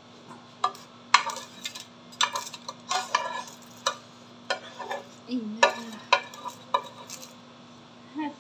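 Metal kitchen tongs clicking and tapping as crisp fried pastry rolls are lifted and set down on a plate: a dozen or so sharp, separate clicks, over a faint steady hum.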